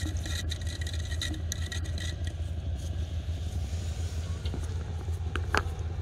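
Steady low engine hum, with a couple of sharp clicks near the end.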